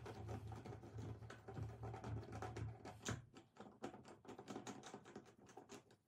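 Screwdriver backing out the mounting screws of an old brass-finish doorknob: a run of light, irregular metal clicks and ticks, with a low hum under the first half.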